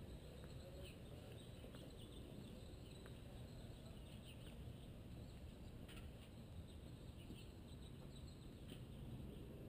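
Near silence: a faint low rumble with a few faint scattered ticks.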